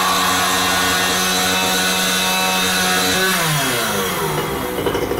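A loud, steady motor buzz that winds down in pitch about three seconds in.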